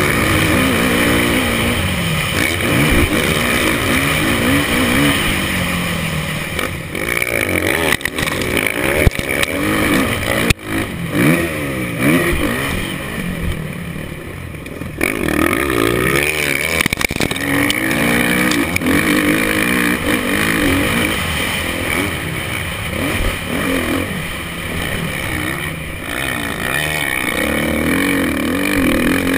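Motocross bike engine heard through a helmet camera, revving up and down again and again as the rider works the throttle and gears around the track. Two sharp knocks come about nine and ten seconds in, and the engine eases off for a moment around thirteen seconds in before picking up again.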